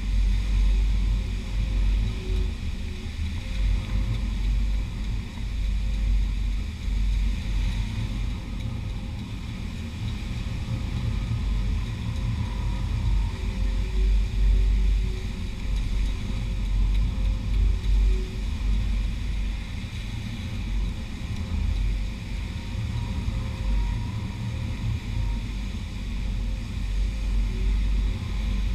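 Wind buffeting the microphone with an uneven low rumble, over a steady wash of surf on the beach.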